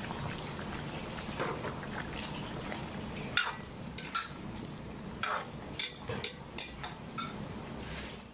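Metal ladle stirring a thick chicken, potato and carrot stew in a stainless steel wok, over a steady simmer. From about three seconds in the ladle clinks and scrapes against the pan about nine times.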